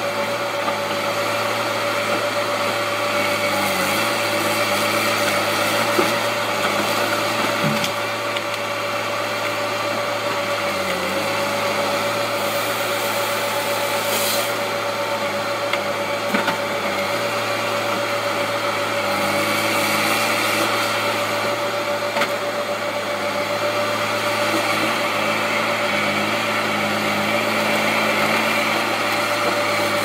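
Diesel engine and hydraulics of a tracked TimberPro TN725-B harvester running steadily under load as its head handles logs, with a constant high whine.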